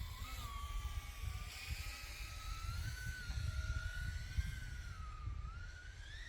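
Small FPV racing drone's 1606 brushless motors spinning 3-inch five-blade props on a 6S battery, a high whine in flight that wavers in pitch with throttle and climbs near the end, over a low rumble.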